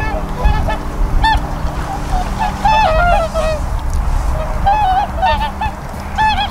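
A flock of whooper swans calling: many short, bugling honks overlapping and following one another in quick succession.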